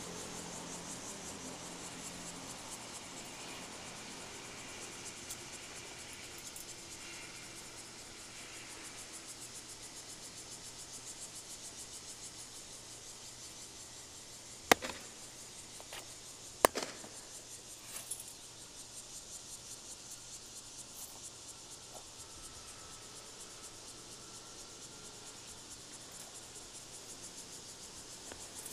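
Insects chirring in a steady, pulsing chorus. Two sharp clicks, two seconds apart, about halfway through.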